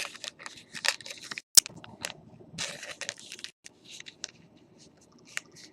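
Trading-card packaging being handled: irregular crinkling and crackling of a plastic pack wrapper and cardboard, with a single sharp click about a second and a half in.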